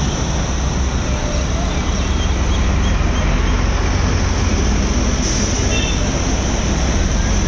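Small truck driving through deep floodwater: a steady, loud rumble of engine and rushing water.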